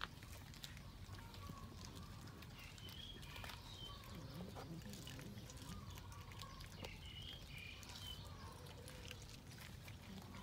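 Cats chewing raw fish: faint, scattered small clicks and crunches, with a few short bird chirps in the background.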